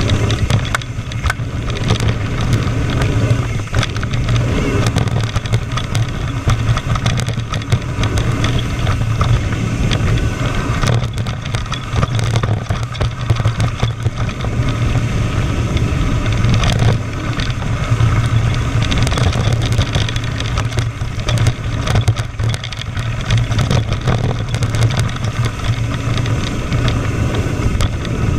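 Wind rushing over a GoPro action camera's microphone as a mountain bike descends a loose gravel dirt trail, with a steady low rumble from the tyres and frequent rattling clicks and knocks from the bike jolting over rocks.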